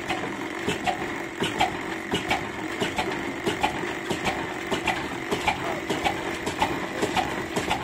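Old stationary Ruston & Hornsby diesel engine with a large flywheel running slowly and steadily, its regular knocks coming about three times a second.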